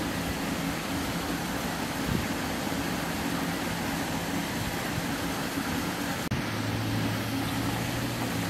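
Steady background hum and hiss of distant road traffic. After a brief dropout about six seconds in, a low steady drone joins it.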